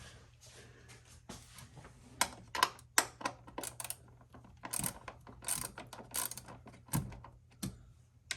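Hand socket ratchet clicking in short, irregular strokes as a fastener is worked loose.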